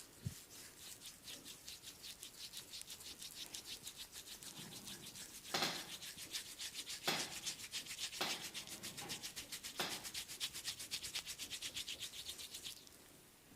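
Hands rubbing briskly back and forth over oiled skin in a massage, a fast even swishing of about seven strokes a second. A few louder slaps come through in the middle.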